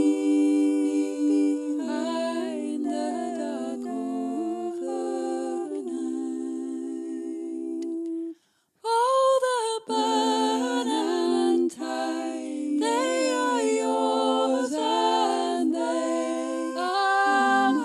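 Unaccompanied choir singing in sustained harmony, with several voices holding chords and a short break about eight and a half seconds in.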